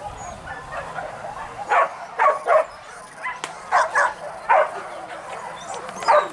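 Hunting dogs barking: several short, sharp barks and yips in bunches of two or three, with gaps between them.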